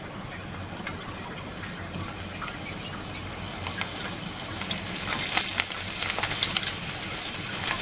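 Soaked chana dal deep-frying in hot oil inside a wire-mesh strainer. A low sizzle turns into a dense crackle about four seconds in and grows louder.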